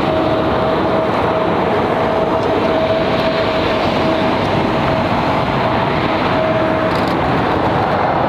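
Airbus A321neo airliner on final approach with its Pratt & Whitney PW1100G geared turbofan engines at approach power. It makes a loud, steady jet rumble, with a steady whining tone over it that stops about seven seconds in.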